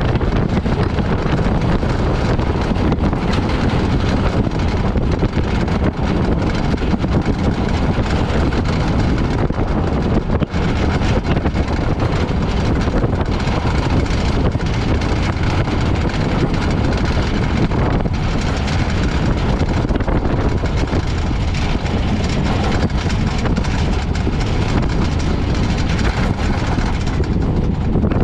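Loud, steady rumble of vehicle and wind noise that never lets up.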